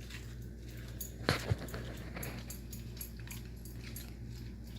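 A Siberian husky makes two short sounds in quick succession about a second and a half in, over a steady low hum.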